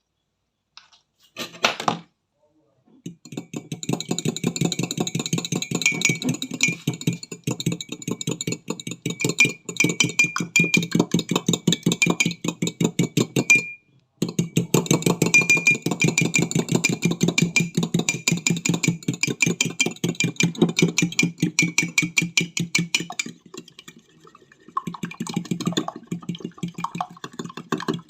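Egg, honey and coconut-milk batter being beaten fast in a mug, a rapid steady rattle that stops briefly about halfway through and then goes on.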